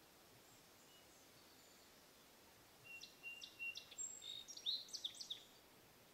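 A songbird sings one song about three seconds in: a few short, even notes, then a quicker jumble of higher notes and downward sweeps. Otherwise faint, steady outdoor background.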